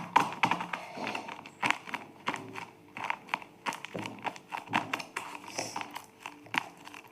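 Packaging crinkling and rustling as it is handled and opened, with many short irregular crackles and light taps.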